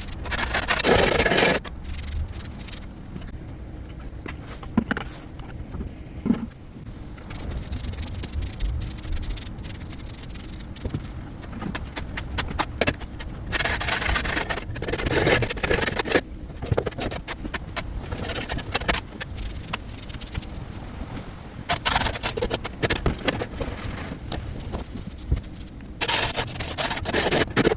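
Pressure washer spraying in several bursts of loud hissing spray, each one to three seconds long, with a lower steady rumble and scattered knocks between them.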